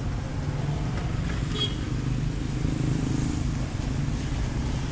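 Road traffic: motor scooter and car engines running past on a wet street, a steady low rumble that swells as one passes closer about halfway through.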